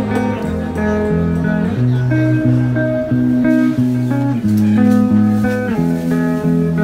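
Instrumental background music, a steady melodic track with a moving bass line.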